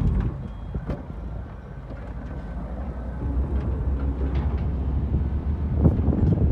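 Diesel engine of a Caterpillar wheel loader running with a steady low rumble, getting louder about three and a half seconds in as it works, with a few sharp knocks.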